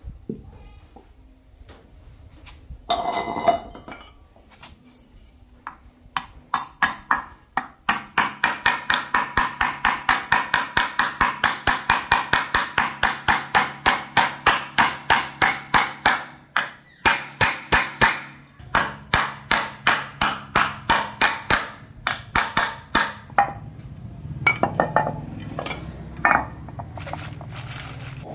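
Hammer tapping on the wheel bearing seated in the centre of an electric bike's metal hub-motor end cover, a rapid run of ringing metallic strikes at about four a second with a brief pause partway, then a few separate taps near the end.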